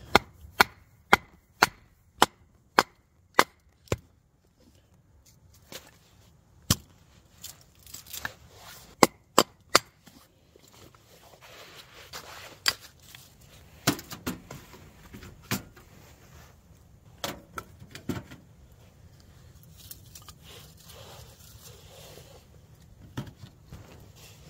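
Small hatchet splitting kindling from a short piece of firewood: a quick run of about eight sharp strikes, two a second, in the first four seconds, then scattered single chops and wooden knocks.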